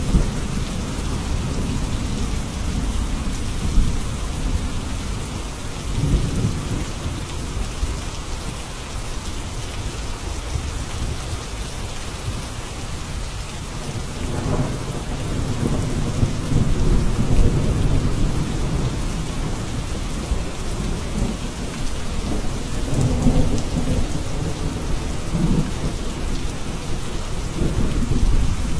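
Steady rain falling, with low rolling thunder that swells and fades several times, about six seconds in, through the middle and again later on.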